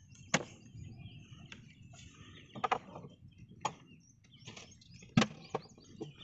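Scattered sharp knocks and clatter as fishing line and gear are handled against the planks of a wooden boat, a handful of separate knocks over several seconds.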